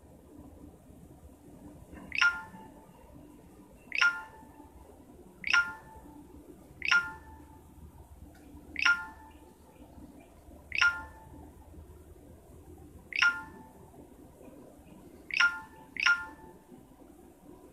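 Short electronic notification chirps from a phone, nine of them at uneven intervals of one to two seconds, each a quick falling sweep with a brief ringing tone under it.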